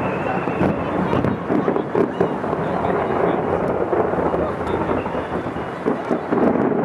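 Distant fireworks display: a continuous rumble of many overlapping booms, with scattered sharp cracks through it.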